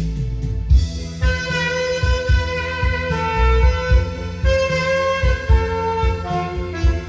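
Saxophone playing a slow trot melody over a keyboard backing track with a steady drum beat; the sax line comes in about a second in and holds long notes.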